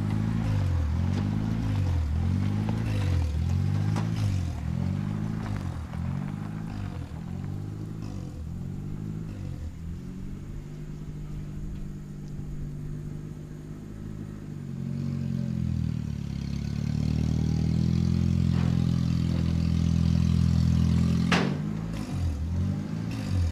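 Lifted Honda Civic's engine running during a test drive, its pitch rising and falling over and over for about ten seconds, then steadier and louder. One sharp clack comes near the end.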